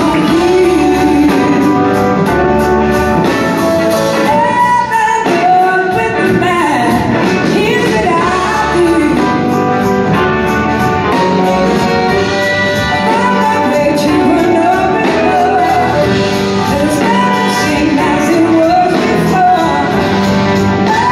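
A live blues-rock band playing with vocals: electric guitars, two drum kits, a horn section and keyboards, heard from the audience in a large hall.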